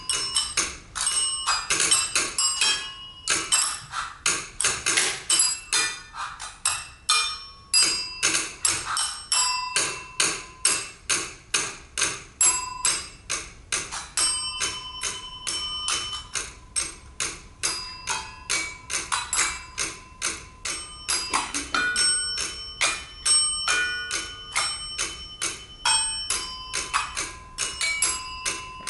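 Percussion trio striking desk service bells and tapping on a tabletop in a quick, steady rhythm. The bells' dings ring on at several held pitches over the clicks.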